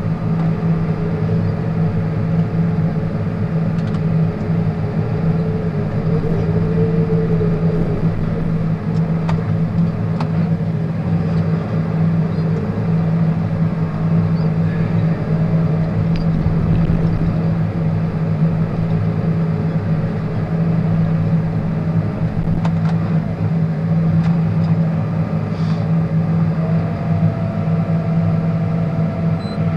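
Green-and-yellow John Deere tractor's diesel engine running steadily under load, heard from inside the cab as a constant low drone. A faint higher whine joins it near the end.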